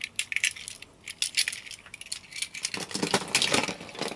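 Diecast metal toy cars clinking and clattering against each other as they are rummaged through in a plastic box: a run of small sharp clicks that grows into denser rattling about three seconds in.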